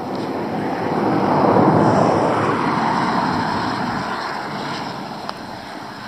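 A motor vehicle passing on the highway beside the shoulder: tyre and engine noise swells to its loudest about one and a half seconds in, then fades slowly as it drives away.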